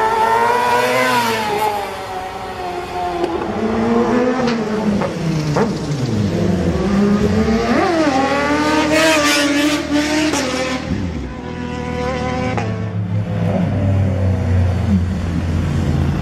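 Sport motorcycle engines revving at high revs as bikes ride past, the pitch climbing and dropping repeatedly, with a sharp rise and fall about halfway through. A lower, steadier engine rumble follows over the last few seconds.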